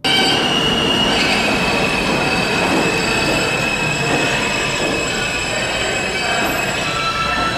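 Subway train running with its wheels squealing against the rails, a steady high squeal over the rumble and rail noise. The sound cuts in suddenly.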